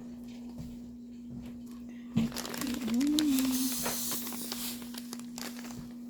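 Rustling and crinkling of a bead-filled pantyhose bag and cloth being handled, with a sharp click about two seconds in and a rustling hiss a second later. A steady low electrical hum sits underneath.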